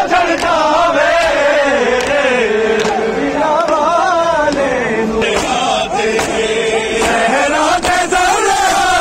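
A man chanting a slow, mournful melody in long wavering lines over a crowd's voices, in the manner of a Muharram noha (Shia lamentation chant).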